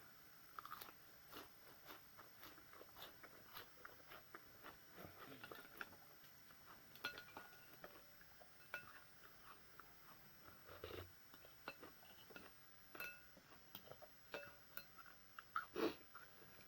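A person eating: quiet chewing and crunching of food, with many small irregular clicks and crackles.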